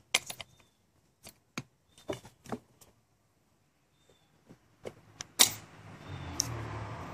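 Several sharp metallic clicks and taps of a long bolt and washer being handled and pushed into place on an engine's intake pipe, then a steady rustle of handling noise from about six seconds in.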